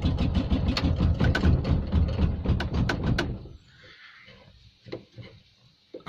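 The Invacar Model 70's Steyr-Puch air-cooled flat-twin engine being turned over on the starter without catching, in an even pulsing rhythm that stops about three and a half seconds in, followed by a few faint clicks. The engine is cold, below freezing, with thick 30-grade oil that the owner thinks isn't helping it start.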